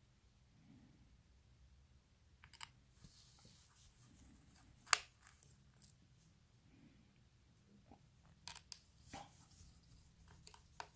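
Faint, scattered clicks and taps of small hand tools and tiny metal parts on an opened iPhone 6. There is one sharp click about five seconds in and a quick cluster of clicks near nine seconds.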